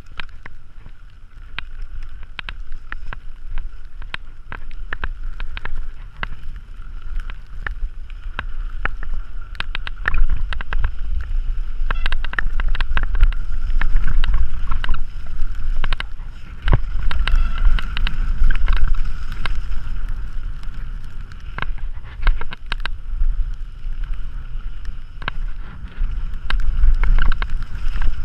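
Mountain bike descending a dirt trail at speed: wind rumbling on the bike-mounted action camera's microphone, with frequent clicks and rattles from the bike over rough ground.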